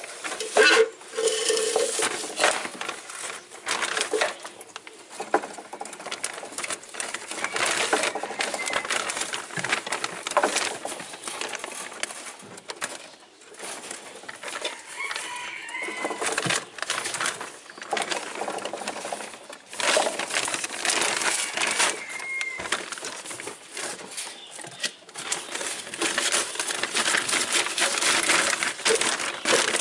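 Dense, irregular crackling and rustling, with a few short bird calls in the background.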